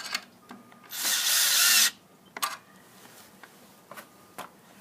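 Power drill with a 7/16 deep socket driving a screw into a wooden 4x4 post, set to a clutch torque of 12. It runs for about a second, getting louder as it goes, and a few short clicks follow.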